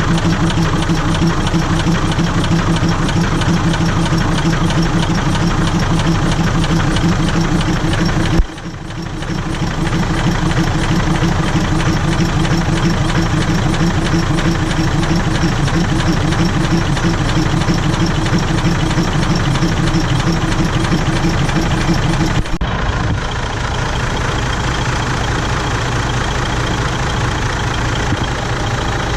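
Air compressor of a Thai diesel railcar running with a steady, rhythmic chugging. The sound dips sharply for a moment about eight seconds in, and a little after twenty seconds the deeper hum stops suddenly while a lighter steady running sound carries on.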